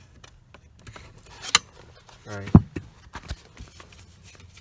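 Small plastic clicks and taps as the seatbelt pretensioner's fastening tab is pushed out of its mount, with a sharper click about a second and a half in and the loudest snap about two and a half seconds in.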